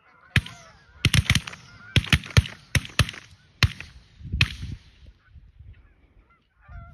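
A volley of about ten shotgun blasts from several hunters firing at a passing flock of geese, close together over some four seconds, each one echoing. Geese honk at the start and again near the end.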